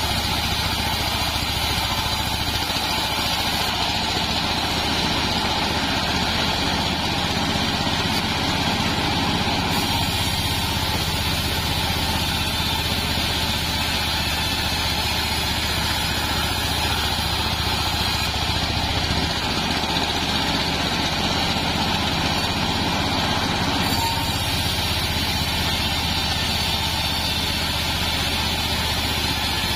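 Bandsaw mill ripping lengthwise through a sengon log, the mill's motor running steadily under load while the blade saws without a break.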